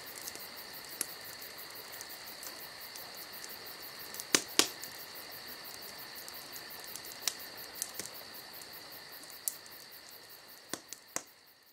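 Crickets trilling steadily in the night, with a wood campfire crackling and snapping now and then; two sharp pops about four and a half seconds in are the loudest. The sound fades down near the end.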